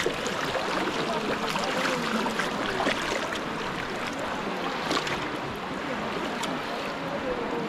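Water sloshing and splashing as many people wade through a shallow river with nets, with faint distant voices of the crowd.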